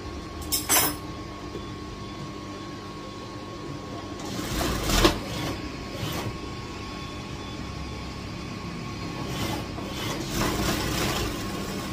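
Industrial sewing machine stitching the side seam of a blouse: a steady motor hum throughout, broken by a few short louder stretches of stitching and fabric handling, the loudest about five seconds in.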